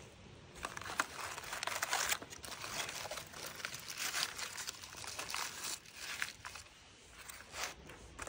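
Aluminium foil crinkling and crumpling in irregular crackly bursts as it is handled, around the foil-wrapped chicken.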